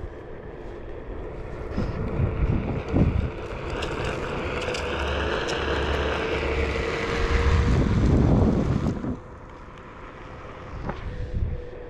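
A vehicle passing outdoors, with wind on the microphone. It grows louder, is loudest about eight seconds in, then drops away sharply about nine seconds in.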